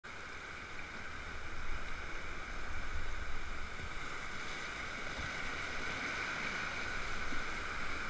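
River whitewater rapids rushing steadily around an inflatable raft, getting louder about a second and a half in.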